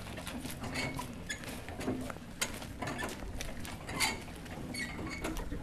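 Large hand-cranked geared winch being turned under load, hauling a boat up a slipway: irregular metallic clicks and clinks from the gear wheels, with short high squeaks.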